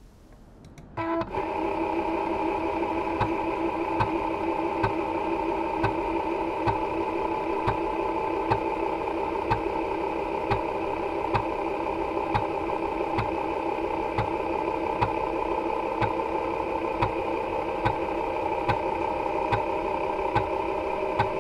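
TEAC 5.25-inch floppy drive reading a 360K disk for imaging: the drive starts up about a second in, then runs with a steady hum, and the head stepper gives a sharp click a little less than once a second as it moves from track to track.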